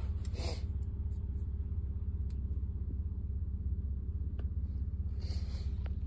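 Low, steady rumble of a car running, heard from inside the cabin, with a few faint clicks.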